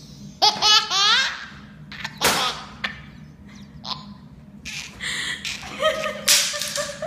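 A baby belly laughing in repeated bursts, set off by the sound of a paper towel dispenser.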